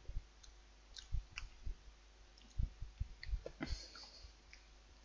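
Quiet, scattered clicks and soft thumps from handling a box of chocolate truffles, with a brief crinkle of packaging about three and a half seconds in.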